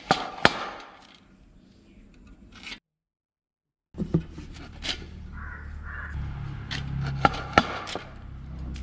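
A knife cutting firm raw green mango by hand: sharp separate clicks and scrapes of the blade through the fruit, with a dead-silent break about three seconds in. A low steady hum joins under the cutting in the second half.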